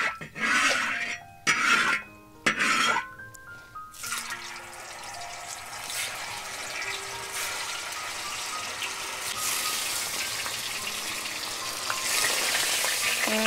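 A metal spatula and strainer clank and scrape in a large wok for the first few seconds. Then pieces of tofu sizzle as they fry in hot oil, and the sizzle grows louder near the end as more tofu goes in.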